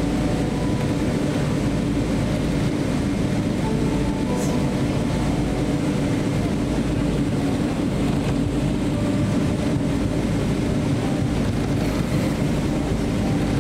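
Steady low rumble inside the cabin of a Boeing 777-300 as it taxis, engines and airframe droning evenly.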